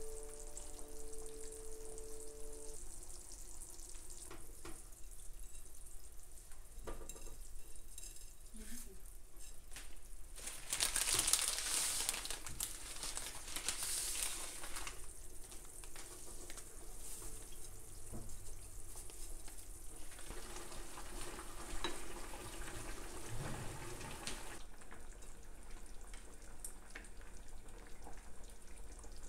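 Water boiling in pans on a gas hob with broccoli cooking, a steady hissing bubble. It grows louder with rustling and splashing for a few seconds about a third of the way in, as dry spaghetti is put into the boiling pot. The hiss drops away about three-quarters through.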